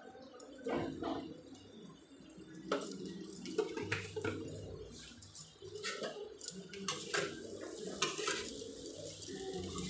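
Vegetables being stirred in a metal kadhai, with the stirring utensil scraping and clinking against the pan in repeated strokes from about three seconds in.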